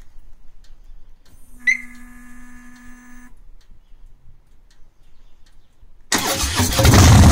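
2014 Harley-Davidson Breakout's Twin Cam 103 V-twin with a Freedom Performance Amendment full exhaust being started. About a second and a half in, a faint electric whine lasts about two seconds, the fuel pump priming. Near the end the starter cranks briefly and the engine fires up loudly.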